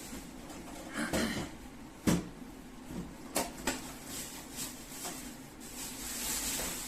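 Handling noise from unpacking a microwave oven: a few knocks, the sharpest about two seconds in, with rustling of packaging in between.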